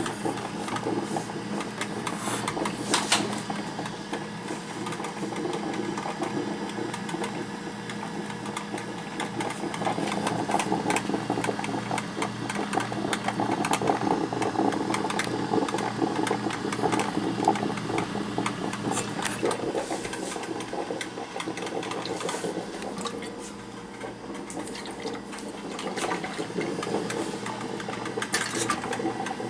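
Black & Decker drip coffee maker brewing: a steady hum under dense, rapid crackling and sputtering as its heater pushes water through.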